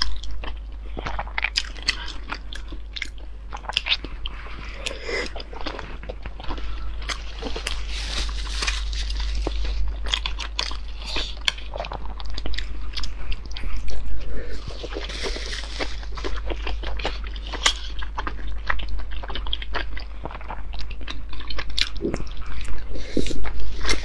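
Close-miked eating of dumplings in chili oil: soft bites, wet chewing and smacking mouth sounds in an irregular run of small clicks, louder around the middle and near the end.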